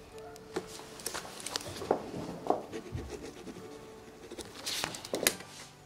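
Ballpoint pen scratching across paper as a document is signed, with irregular paper rustles and a few sharp small clicks.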